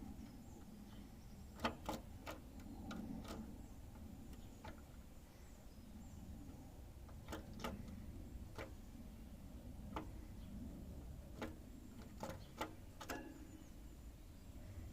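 Scattered sharp clicks and taps inside a canary's cage, about a dozen at irregular intervals, several in quick pairs, over a low steady hum; the bird is not singing.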